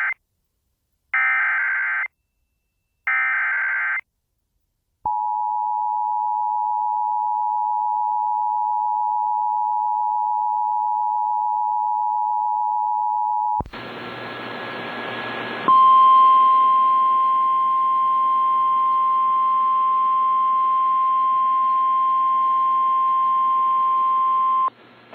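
Emergency Alert System tones. First come the screeching SAME header data bursts, each about a second long with a second's gap. Then the two-tone EAS attention signal holds steady for about eight and a half seconds, followed by about two seconds of radio hiss and a single steady 1050 Hz NOAA Weather Radio warning alarm tone over background noise for about nine seconds.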